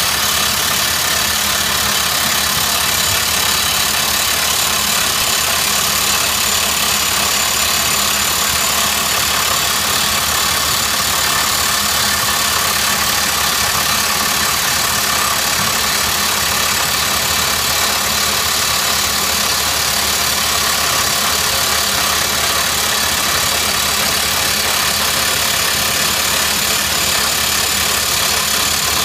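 Montabert HC20 hydraulic drifter on an excavator-mounted rock drill hammering steadily into rock while drilling a blast hole: a loud, rapid, continuous percussion that holds the same level throughout.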